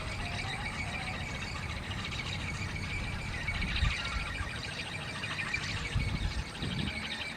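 Bamboo wind spinner whirring in the wind with a fast, rattling buzz, over a low rumble of wind on the microphone that swells in gusts about four and six seconds in.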